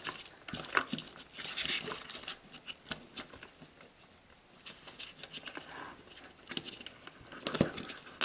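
A nylon cable tie being worked around a telephone cable's sheath on a plastic socket: light rustling and scraping of plastic with scattered small clicks.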